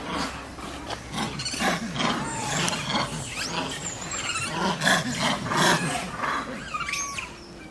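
Long-tailed macaques calling: a series of short, noisy calls with a few gliding squeals, one clear squeal near the end.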